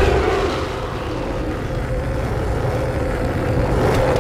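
Steady drone of several approaching biplane engines, slowly growing louder.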